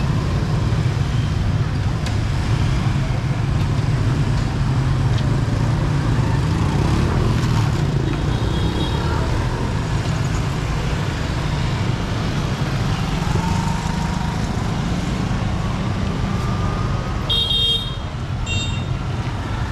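Busy street traffic with engines running close by in a steady low rumble. Short horn toots sound about eight seconds in and twice more near the end.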